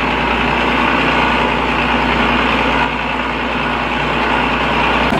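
Seawater gushing and splashing into a boat's livewell from its inlet, over a steady low engine hum.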